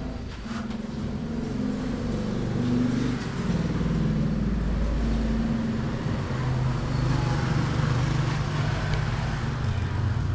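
An engine running, its pitch shifting up and down, growing louder over the first few seconds and then holding steady.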